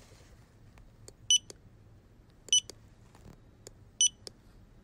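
Fingerprint scanner sound effect: three short, high electronic beeps a little over a second apart, each followed by a small click, over faint room tone.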